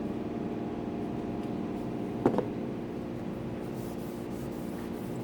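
Steady hum of a small electric motor, with two quick knocks a little over two seconds in.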